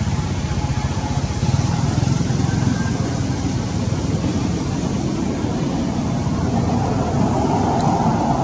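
Steady low rumbling background noise with no distinct events, like traffic.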